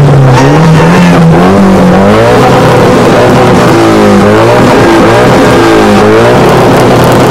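A car engine revved repeatedly through a loud exhaust to show off its exhaust note. The pitch climbs and falls in a series of rev sweeps.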